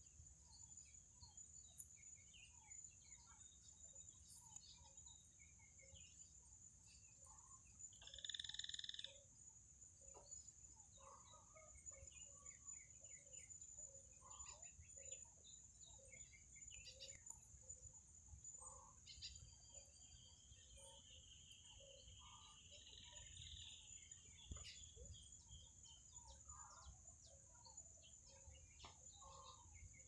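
Quiet countryside ambience: many short bird chirps and calls over a steady high-pitched drone. A louder call comes about eight seconds in, and a long trill runs from about twenty to twenty-four seconds.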